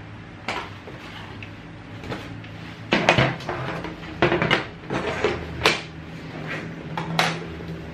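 Clatter and sharp knocks of stiff plastic parts of a thermal printer's paper holder being taken from a cardboard box, handled and set down on a table. The knocks come in a cluster about three seconds in, several more between four and six seconds, and one near the end.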